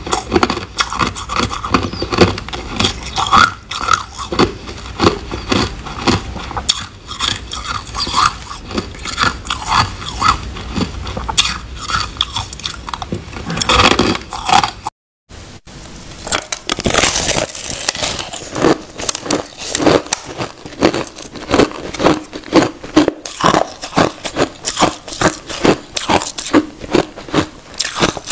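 Crushed ice being chewed and bitten: a dense run of crunches, several a second, with a short break about halfway through.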